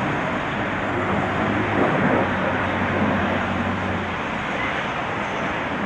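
BAC Strikemaster's single Rolls-Royce Viper turbojet heard in flight as a steady rushing jet noise, swelling slightly about two seconds in.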